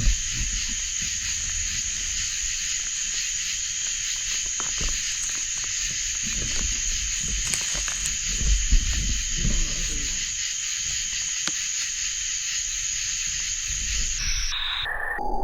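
Steady night chorus of insects and frogs around a pond, a continuous high-pitched trilling, with low rumbles and knocks of handling and walking. Near the end the chorus cuts off abruptly.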